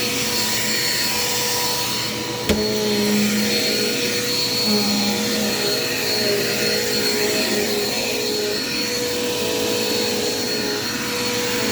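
Dirt Devil Quick Power vacuum cleaner running steadily with suction on, a steady high whine over its motor hum. A single sharp click about two and a half seconds in.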